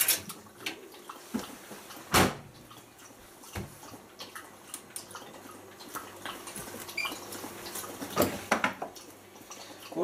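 Shirts being pushed into a Bosch Logixx WAS32461 washing machine's drum: fabric rustling with scattered clicks and knocks against the drum, the loudest about two seconds in and a cluster of them around eight seconds in.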